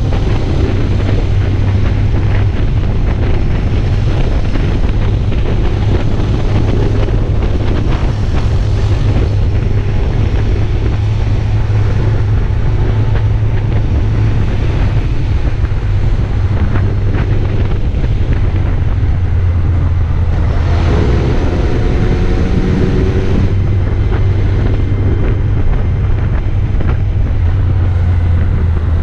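Wind rushing over the microphone of a camera on a moving vehicle, over the steady low hum of its engine and tyres on the road. About twenty seconds in, a few engine tones slide in pitch for a couple of seconds.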